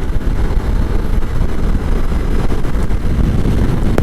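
Steady low rumbling wind noise buffeting the microphone, with a single short click near the end.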